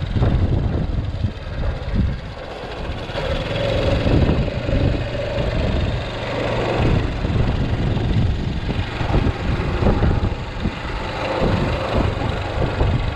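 Honda Super Cub JA44's 110 cc single-cylinder four-stroke engine running steadily.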